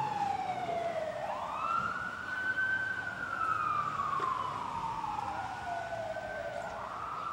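A siren wailing, its pitch gliding slowly down and then back up, twice over.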